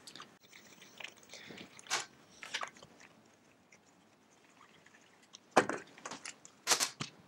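Light metallic clicks and clatters as a carburettor is unbolted with a T-bar wrench and pulled off a two-stroke kart engine. There is a quiet stretch in the middle, then a quick run of sharper clicks near the end.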